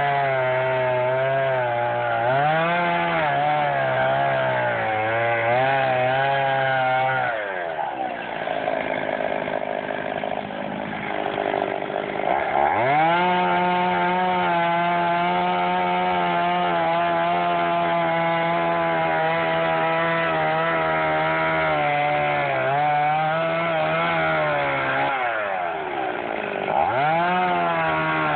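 Chainsaw running at high revs while cutting a tree. The engine note drops as the throttle is let off about seven seconds in and rises back about five seconds later, then dips and rises again near the end.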